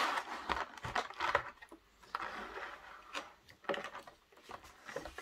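A clear plastic model-locomotive display case being handled and opened on a tabletop: a run of plastic clicks, scrapes and light knocks, with a longer scraping rustle about two seconds in.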